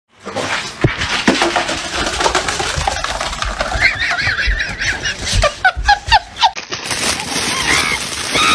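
A dog making a run of short, high-pitched yelping calls, coming faster about five to six seconds in.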